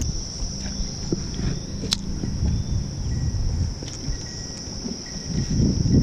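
Steady high-pitched chorus of late-summer insects, with a low rumble underneath and a single sharp click about two seconds in.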